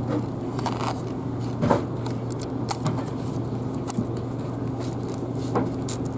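Scattered clicks, knocks and scrapes of wheelchair restraint belts and buckles being fastened inside a stationary city bus, over the bus's steady low hum.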